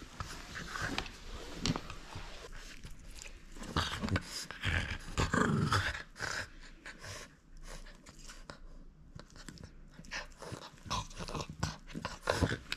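French bulldog panting and growling while it grips a rubber ring toy in a tug with a person's hand, with scattered clicks as it works the toy. The sounds are loudest for a couple of seconds near the middle.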